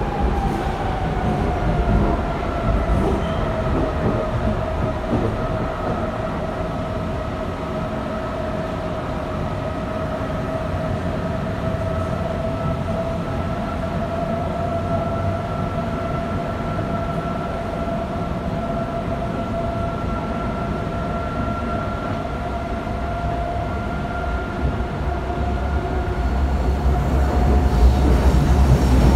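Berlin U-Bahn G1/1E train heard from inside the car while running, with a rumble of wheels on the track. A whine over it drops in pitch over the first few seconds, then holds steady. The rumble grows louder near the end.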